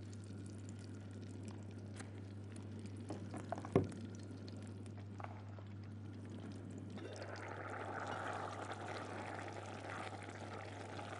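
A pot of rice simmering in its cooking water, faint bubbling that gets louder from about seven seconds in as the lid comes off; the rice is at the stage of absorbing the water. One knock about four seconds in.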